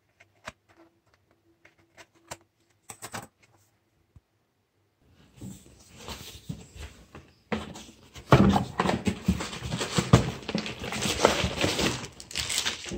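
A cardboard box being handled and opened, with a plastic-wrapped package pulled out of it. A few light taps and clicks come first, then from about halfway through a dense rustling and crinkling of cardboard and plastic.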